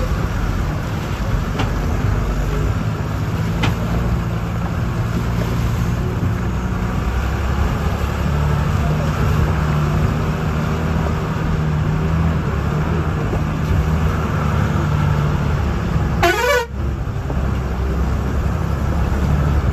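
A bus engine and its road noise, heard from inside the bus as it drives a rough dirt mountain road: a steady low drone. About three-quarters of the way through there is one brief rising chirp.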